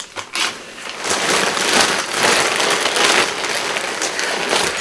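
Rustling and crinkling of a bag being rummaged through by hand, a dense crackly rustle that starts about a second in and keeps going.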